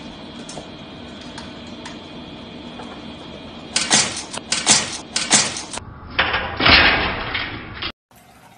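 A steady room hum with faint clicks. About four seconds in come a few loud knocks and rattles, then a louder noisy clatter lasting about two seconds that cuts off suddenly.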